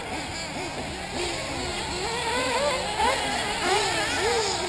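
Several 1/8-scale nitro RC buggies' small two-stroke glow engines racing, their high whines rising and falling and overlapping as each car revs and backs off around the track.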